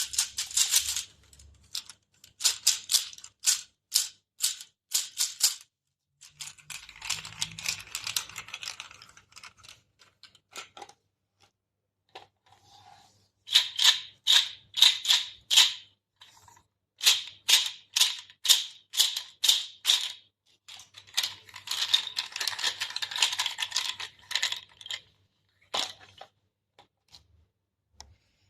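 Quiribillos, a folk percussion instrument, played in rhythmic runs of sharp, evenly spaced clacks alternating with denser shaken rattling passages, with short pauses between phrases. The playing stops shortly before the end.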